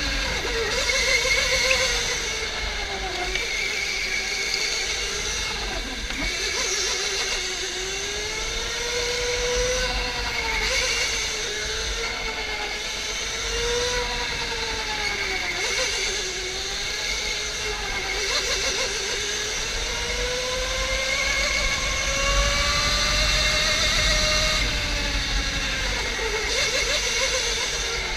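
OTL Storm electric go-kart's motor whining under power, its pitch rising and falling over and over as the kart speeds up and slows, over a steady low rumble.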